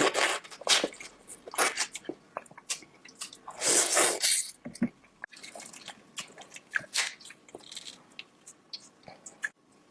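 Close-miked mukbang eating sounds: wet chewing, biting and smacking of sauce-covered seafood and corn, in short irregular clicks and squelches, with one longer, louder wet sound about four seconds in.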